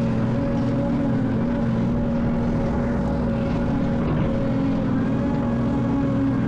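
Excavator's diesel engine running at a steady pitch.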